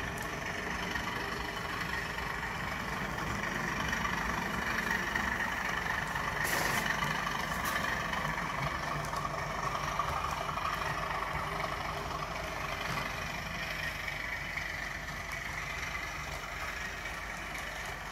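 OO-scale model train running on its track: a model BR Class 37 diesel locomotive hauling a rake of coaches, making a steady engine-like running sound. The sound swells in the middle and eases toward the end.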